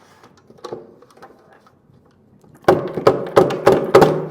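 Five sharp knocks in quick succession, about three a second, starting nearly three seconds in, after a stretch of faint clicks.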